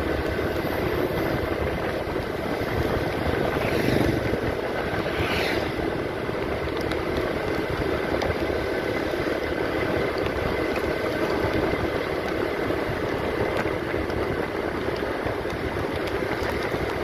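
Motorcycle engine running steadily while riding, swelling briefly about four seconds in.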